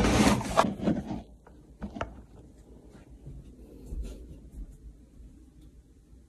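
Handling noise of a phone camera being moved and set down: loud rubbing and scraping right against the microphone for about the first second, then faint rustling and a few light taps.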